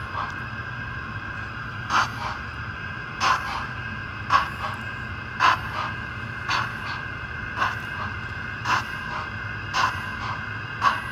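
A Roco model of the BR 10 002 steam locomotive, its sound decoder playing slow steam chuffs as the model runs slowly: a strong chuff about once a second with softer ones between, over a steady low hum.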